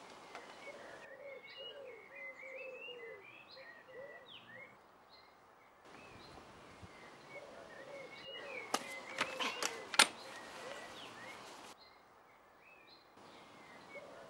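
Quiet garden birdsong: small birds chirping and calling over a soft background hiss. Near the middle come a few sharp clicks or knocks, and the sound drops out briefly twice.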